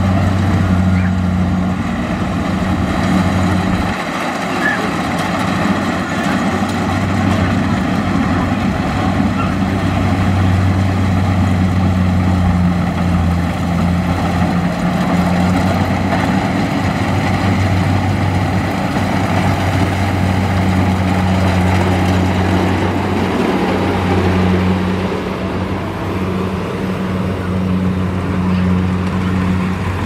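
Kubota DC70 Plus combine harvester's diesel engine and threshing machinery running steadily as it cuts rice, a constant deep hum with a noisy mechanical layer above it.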